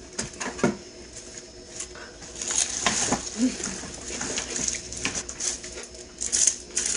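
A person chewing a bite of seasoned pickle: wet crunching with many small mouth clicks and smacks.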